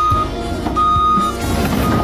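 Music with a steady beat, over which a single high beep repeats about once a second.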